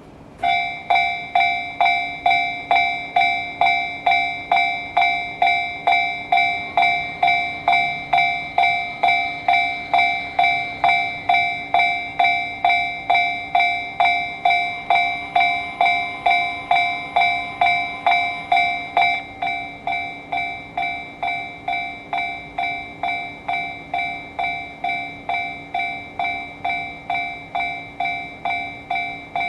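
Japanese railway level-crossing warning bell starting to ring about half a second in, a steady electronic ding repeating about twice a second, the signal that a train is approaching. It gets a little quieter after about 19 seconds.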